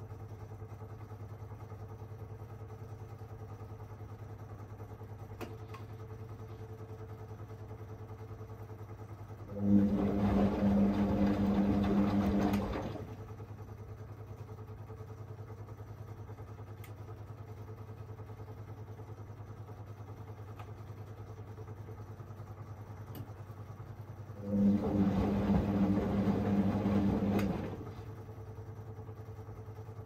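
Whirlpool Aqualine AWM1860 front-loading washing machine in its main wash: the drum motor turns the drum twice, for about three seconds each, with a steady motor whine and the noise of the tumbling load. Between the turns there is a steady low hum while the drum rests.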